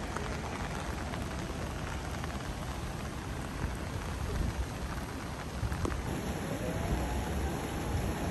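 Heavy rain falling steadily, drops pattering on puddles and wet asphalt.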